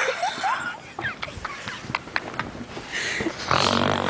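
A person snoring: one long noisy snore fading at the start and another about three and a half seconds in, with small clicks and squeaks between breaths.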